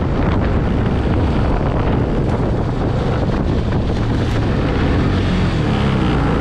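Four-wheeler (ATV) engine running while being driven, with strong wind buffeting the microphone. The engine note comes through more clearly near the end.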